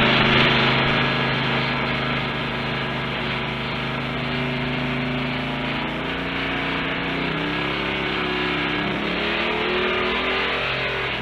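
Car engine running as the car drives, with steady road noise; its pitch shifts a couple of times in the second half.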